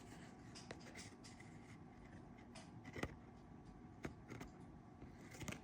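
Trading cards being handled: faint scratchy rustles of cards sliding against each other, with scattered light clicks and a sharper tap about three seconds in.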